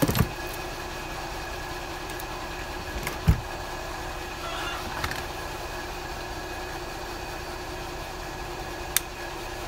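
A steady mechanical hum runs throughout, with a few sharp clicks and one dull knock about three seconds in as hand tools pry at a small lawn mower fuel pump body.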